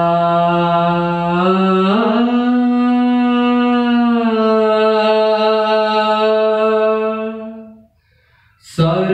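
A man singing solo, holding long drawn-out notes. The pitch steps up about two seconds in and that note is held until it fades out near the end. After a brief pause for breath, the voice comes back in strongly.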